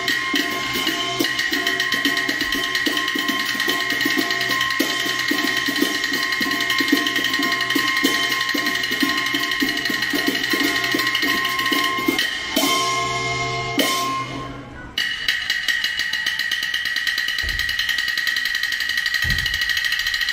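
Qin opera accompaniment with drums and wood-block percussion striking a fast, busy rhythm under steady held high tones. The music thins out briefly about three quarters of the way through, then resumes.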